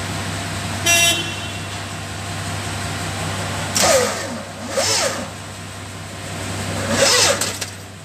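Volvo D11 truck diesel engine being cranked by its starter motor, a steady low drone that stops near the end without the engine catching. The engine cranks but won't start and turns heavily, dragged by a seized idler pulley on the belt drive. A brief high tone comes about a second in, and short high-pitched squeals come around four, five and seven seconds in.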